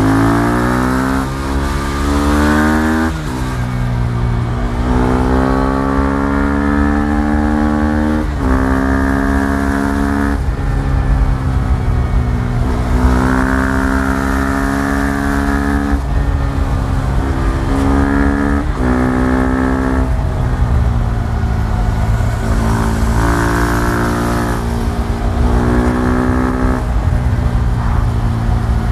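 KTM Duke 390's single-cylinder engine pulling hard through the gears: its pitch climbs and then drops sharply at each upshift, over and over.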